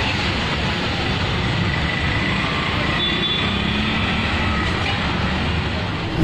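Steady roadside traffic and street noise.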